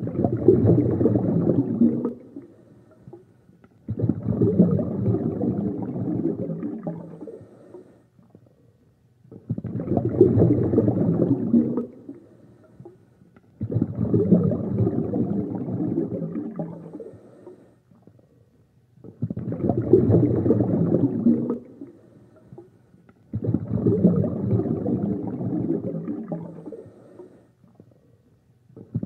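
Scuba diver's regulator breathing heard underwater: gurgling, rumbling bursts of exhaled bubbles, six in all, each lasting two to four seconds with short quiet gaps between them in a steady breathing rhythm.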